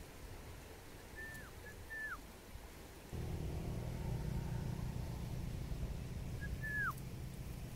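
Short whistled bird calls that drop sharply in pitch: two about a second in and one near the end. Under them is a low rumble, which about three seconds in grows louder into a steady, engine-like hum.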